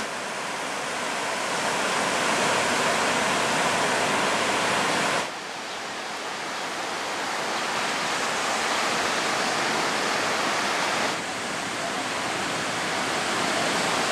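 Steady roar of ocean surf breaking on the beach, in three spliced stretches: it drops suddenly about five seconds in and again near the end, then builds back up each time.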